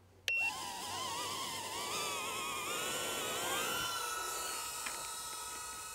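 Small whoop-class FPV drone (Emax Tinyhawk Lite) flying, its tiny motors whining. The pitch wavers with the throttle, then climbs and holds steady about four seconds in, with a short electronic beep just before the whine starts.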